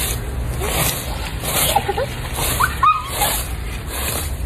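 Fan-shaped leaf rake scratching across grass and yard debris in repeated strokes, about one a second.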